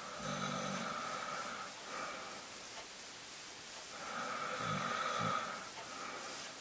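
A person snoring in their sleep: two snores about four seconds apart, the second louder and longer.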